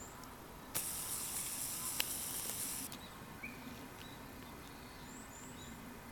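A sharp hiss lasting about two seconds that starts and stops abruptly, with a single click in the middle.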